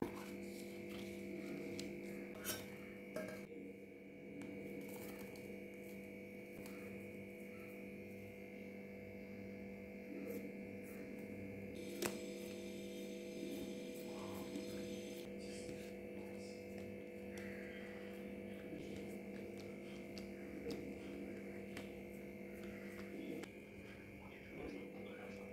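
Steady electrical hum with several fixed tones, under a few faint short clicks and rustles of hands handling a banana leaf.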